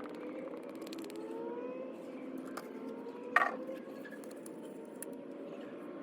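Steady engine hum with faint tones that slowly rise, like a vehicle passing, and one sharp knock about three and a half seconds in.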